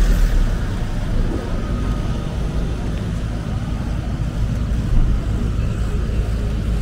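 City street noise: a steady low rumble, like traffic passing on the road.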